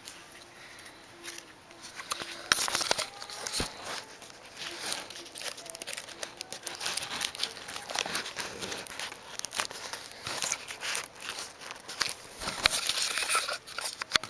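Paper crinkling and rustling in irregular bursts as a paper suppressor is handled and fitted onto a homemade paper model gun. It is quieter for the first couple of seconds, then busier.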